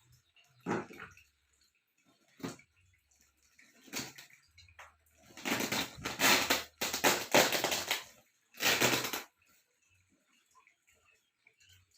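Water splashing and pouring out of a fish shipping bag in several bursts, the longest running for a few seconds in the middle.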